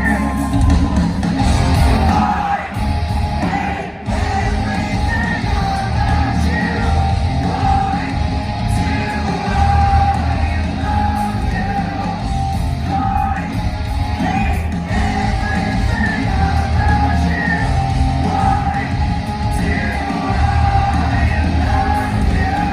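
Live hard rock band playing, with electric guitars, bass, drums and singing.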